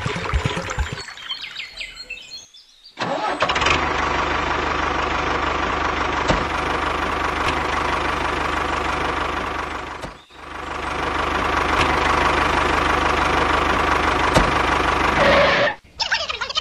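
An engine running steadily. It has a short gap about three seconds in and a brief dip about ten seconds in, and stops about a second before the end.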